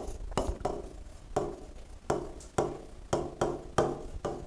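A pen tapping and knocking on an interactive touch-screen board while a word is handwritten on it: a series of short, irregular taps, about two or three a second.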